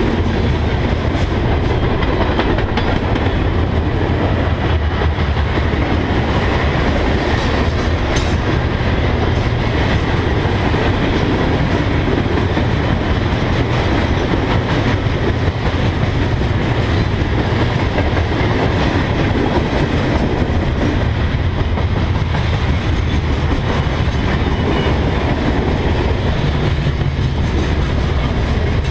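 A long freight train of covered hoppers, coal gondolas and refrigerated boxcars rolling past close by: a steady, loud noise of steel wheels on the rails, with scattered clicks of wheels over rail joints.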